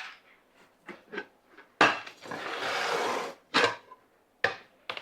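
Kitchen cookware handling: a sharp knock of a bowl or pot, then about a second and a half of rushing noise as something is tipped or poured, and two more short knocks near the end.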